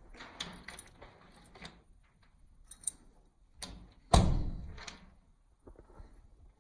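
A scatter of short knocks and clicks, then one loud bang about four seconds in that rings on briefly before fading.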